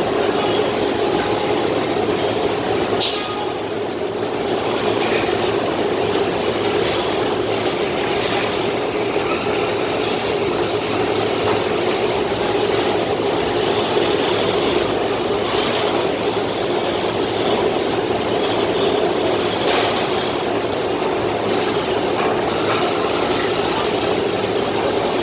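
Industrial machinery running steadily: a constant mechanical hum and rumble with occasional light clicks.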